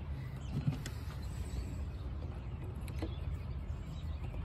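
Steady low hum with a few faint clicks and taps from hand tools and small parts being handled under the hood, as a flathead screwdriver and a plastic radiator bleeder screw are readied.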